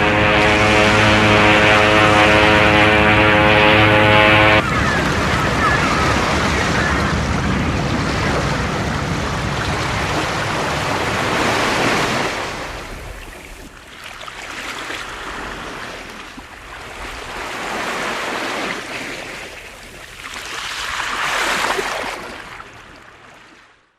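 Sea surf: a steady, dense wash of waves that then breaks into separate waves swelling and receding every three to four seconds, fading out near the end. For the first four and a half seconds a steady low pitched tone sounds over the surf and stops abruptly.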